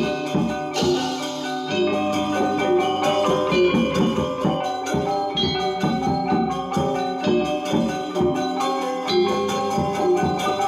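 Balinese gamelan gong ensemble playing an instrumental piece (tabuh): bronze metallophones and gongs struck in fast, dense patterns over ringing held tones.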